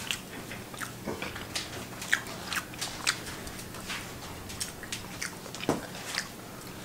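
A person chewing a sauce-covered chicken wing with the mouth close to the microphone: irregular wet clicks and smacks, one louder smack a little before the end.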